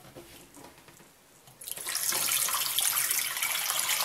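Water poured from a kettle into a stainless steel pot, splashing around two glass jars to make a water bath. The pour starts abruptly about a second and a half in and then runs steadily.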